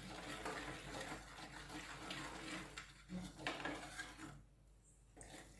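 A spoon stirring and scraping besan (gram flour) as it roasts in ghee in a pan, with small clicks against the pan; it goes quiet for a moment about four and a half seconds in.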